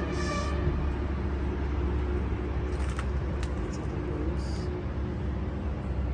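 Steady low rumble of outdoor background noise, with a couple of faint clicks about three seconds in.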